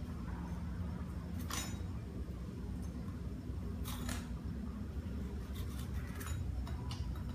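A knife cutting through a raw bitter melon: several crisp, short crunches a second or two apart, over a steady low rumble.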